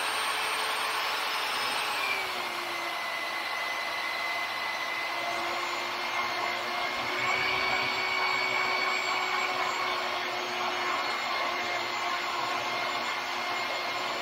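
Magnetic drill motor running steadily with a whine while drilling a hole in steel; its pitch drops a little about two seconds in and then holds.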